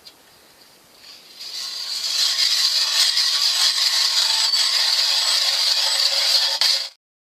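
Ice auger boring into lake ice, a steady grinding scrape that builds up about a second in and cuts off abruptly near the end.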